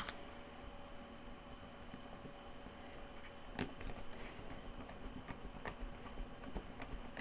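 Faint, scattered clicks and taps of a precision screwdriver and small plastic parts being handled while screws are driven into a food chopper's plastic motor housing, a few sharper clicks standing out.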